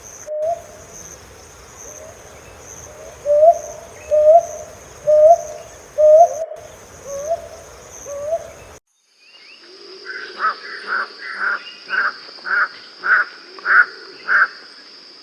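Hume's hawk-owl giving a series of short hoots, each rising slightly, just under a second apart, over a steady high insect drone. After an abrupt cut, a different bird gives sharper repeated calls about every 0.6 s over another insect drone.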